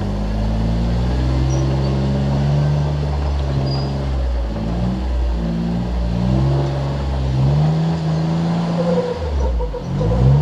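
Jeep Wrangler engine revving up and down several times under load as it crawls up a rock ledge, the pitch climbing, falling back, and climbing again.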